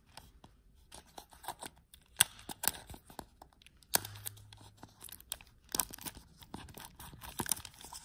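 Plastic wrapping of a surprise pudding egg being handled and torn open: scattered crinkles, crackles and small clicks in irregular bursts.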